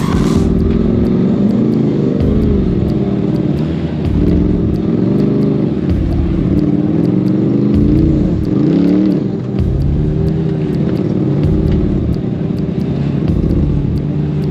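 Side-by-side UTV engine crawling over rocks, revved up and let down again and again in short throttle blips, its pitch rising and falling every second or two.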